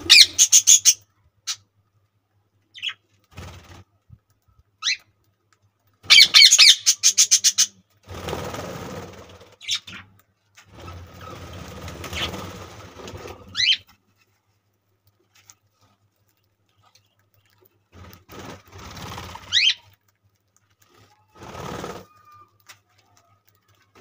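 Budgerigars chirping: two bursts of rapid high chirps, the first right at the start and the second about six seconds in, with a few single rising chirps later. Between them come stretches of soft rustling and wing flapping as birds land at a seed bowl.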